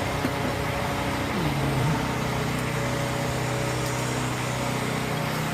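A truck engine running steadily, its pitch dropping once about a second and a half in.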